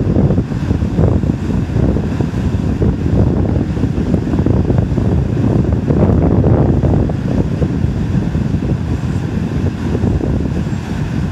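A line of heavy diesel trucks, dump trucks and semi tractors, rolling past with their engines running, under a steady rumble of wind buffeting the microphone.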